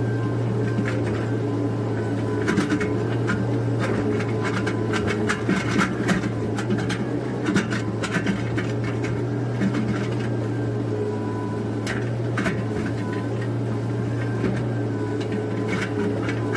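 Komatsu PC130F excavator's diesel engine running steadily under load while the bucket digs a ditch, with scattered clicks and knocks from the bucket and soil throughout.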